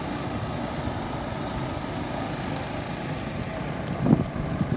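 Small gasoline pump engine running steadily, feeding water to a sluice. About four seconds in, a short gust of wind hits the microphone.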